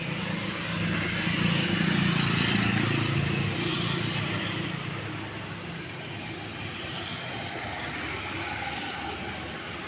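A motor vehicle passing: a broad rumble that swells to its loudest about two seconds in and fades over the next few seconds, leaving a steady background hum of traffic.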